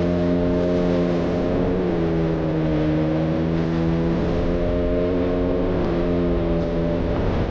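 Single-cylinder 200 cc motorcycle engine running at steady cruising revs while riding, under heavy low wind rumble. Its pitch dips slightly in the middle, and the engine tone fades near the end.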